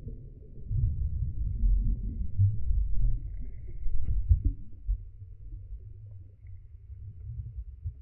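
Muffled rumble and sloshing of pool water churned by a swimming dog, heard with the microphone underwater. Louder for the first half, with a sharp knock about four seconds in, then quieter as the camera comes up to the surface.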